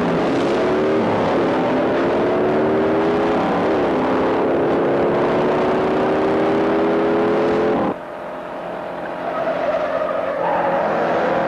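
V8 engines of a 1968 Ford Mustang fastback and Dodge Charger accelerating hard, the pitch climbing through the gears with two quick upshift dips in the first four seconds. About eight seconds in the sound cuts abruptly to a quieter engine note, which builds again near the end.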